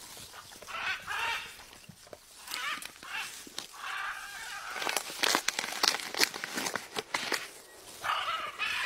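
Blue-and-yellow macaw giving short harsh calls about a second in, around four seconds and near the end. Between them comes a run of sharp clicks and rustling, loudest in the middle.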